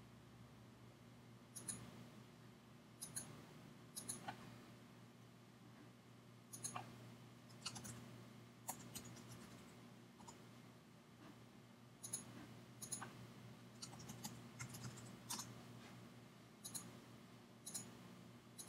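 Faint computer mouse clicks and keystrokes, single clicks a second or so apart with a quicker run of them from about twelve to fifteen seconds in, over a faint steady hum.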